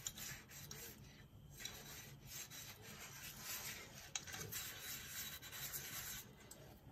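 A sponge scrubbing a glass dish at a sink: faint, uneven rubbing that comes and goes, with one light clink about four seconds in.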